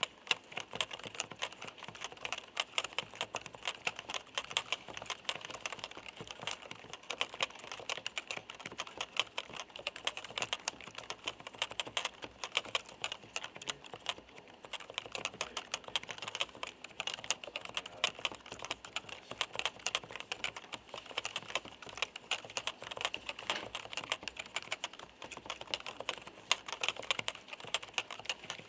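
Continuous fast typing on a Topre FD-0100 capacitive (electrostatic) non-contact keyboard: a dense run of light, clacky keystrokes.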